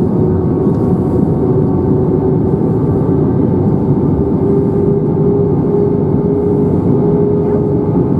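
Airbus A321-231 cabin noise in flight, heard at a window seat: the steady roar of airflow and the IAE V2500 turbofans, with one steady engine hum running through it.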